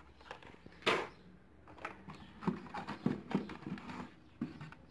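Handling noise from carded toy cars in a cardboard case: plastic blister packs and card crackling and knocking as they are picked through. One sharp crackle about a second in, then a run of soft knocks and rustles.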